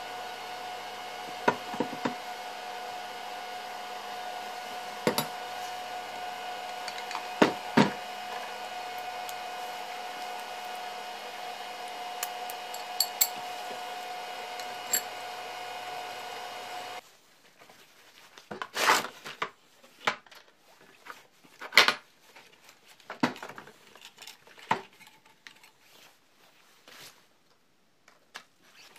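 Metal-on-metal clanks and knocks as an angle grinder and a steel bracket are handled and set down on a workbench, over a steady electrical hum that cuts off abruptly a little past halfway.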